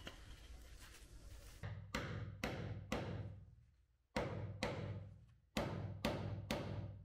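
Steady running noise for the first second and a half, then about nine sharp knocks in uneven groups, each ringing briefly with a deep hum. The sound cuts off suddenly at the end.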